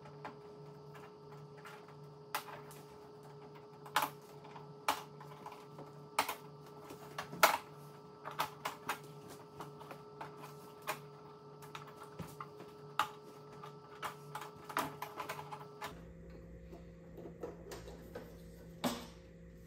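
Plastic snap-clips of a TV's LED backlight diffuser frame clicking loose one after another as the frame is pried off the screen: irregular sharp clicks and snaps, a few louder ones, over a faint steady hum.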